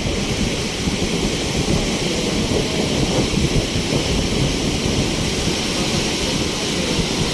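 Heavy ocean surf, a loud, steady roar of big waves breaking, strongest in the low rumble.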